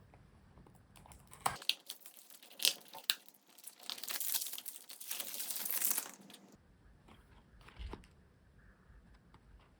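Toy-car packaging being opened by hand: a few sharp crackles, then about two seconds of continuous tearing and crinkling of the wrapping.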